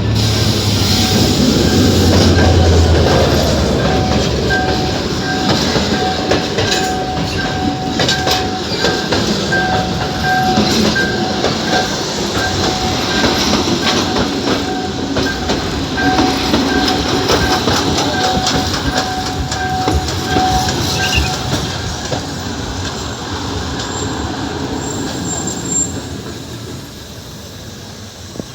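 Abu Qir line commuter train running on the rails, wheels clattering with a thin, on-and-off wheel squeal through most of it. The sound fades near the end.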